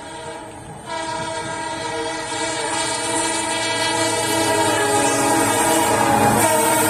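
Multi-tone air horn of an Indian Railways EMD diesel locomotive, sounding continuously from about a second in as the train approaches at speed. Its pitch drops near the end as the locomotive passes. The wheel and rail rumble grows louder underneath.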